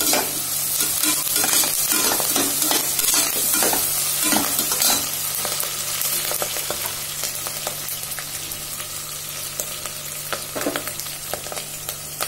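Diced vegetables with fresh curry leaves sizzling in hot oil in an aluminium pressure cooker, while a slotted steel spatula stirs and scrapes them against the pot. The scraping strokes come thick in the first five seconds, ease off, and return briefly near the end.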